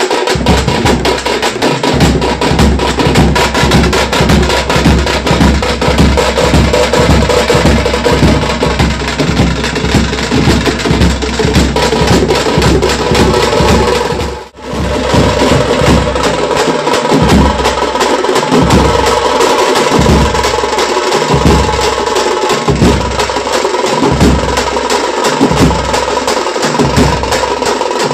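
Loud festival procession drumming: fast, sharp stick strokes over deep drum beats. It cuts out for an instant about halfway, after which the deep beats fall into about one a second.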